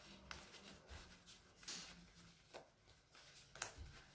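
Faint rustling of a child's quilted nylon puffer jacket as its zipper is worked closed by hand, with a few short swishes and a sharp click near the end.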